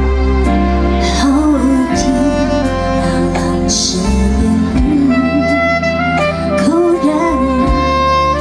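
Live band music: a woman sings a melody into a microphone, coming in about a second in, over sustained backing chords and bass guitar.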